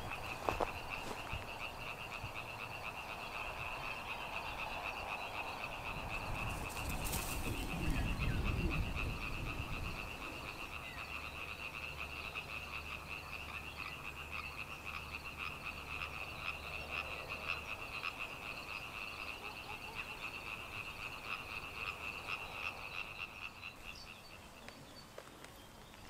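A chorus of frogs calling from a pond, a steady, rapidly pulsing sound that fades near the end. A brief low rumble comes about eight seconds in.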